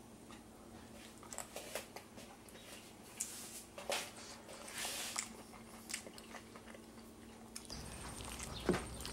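Quiet scraping and scattered light clicks of a metal spoon digging into cooked rice in a marble bowl, over a faint steady hum.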